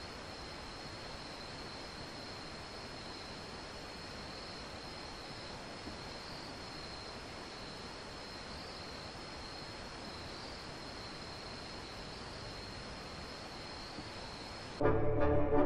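Evening insect chorus: a continuous high trill over a steady hiss. Loud brass music cuts in suddenly just before the end.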